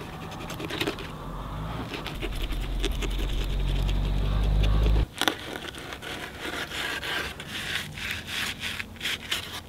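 Fillet knife sawing and scraping through a yellow perch in a run of short strokes, heard mostly in the second half. Before that, a steady low hum grows louder and cuts off suddenly about five seconds in.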